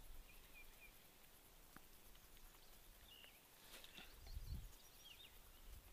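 Quiet outdoor ambience with a few faint, short bird chirps scattered through it, and a soft low rumble about four and a half seconds in.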